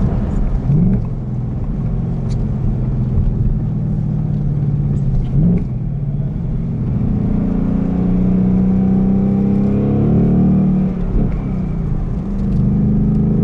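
Ford Mustang Bullitt's 5.0-litre V8 accelerating hard through the gears, its note rising and dropping back with each shift, with brief quick rises about a second in and about five seconds in.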